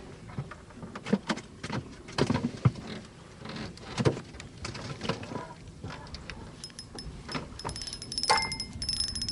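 Irregular knocks and clattering of tackle and gear being handled in a fishing boat. From about seven seconds in, a rapid, even ticking with a thin high whine joins in.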